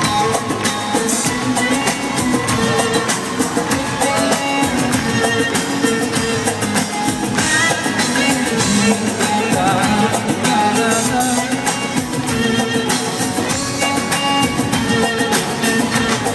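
A live band plays an upbeat pop song with drum kit and guitar, in an instrumental passage between sung lines.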